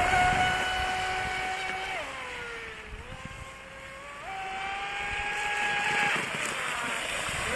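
Radio-controlled racing boat's motor running flat out with a high whine. About two seconds in the pitch sinks and it grows fainter as the boat runs far off, then about four seconds in the pitch climbs back and it gets louder as the boat speeds back.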